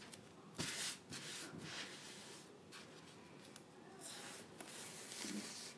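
A sticky adhesive silk-screen transfer rubbed against a microfiber towel and pulled off again, giving several soft rubbing and rasping swishes. This is 'fuzzing' a brand-new transfer to take off some of its tack.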